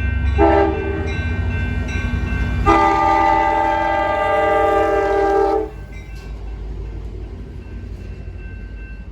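Train horn sounding a short blast, then a long blast of about three seconds, a chord of several steady tones over a continuous low rumble.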